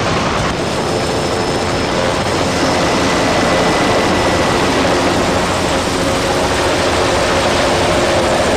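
Helicopter engine and rotor running steadily in flight, heard from inside the cabin as a loud, even drone.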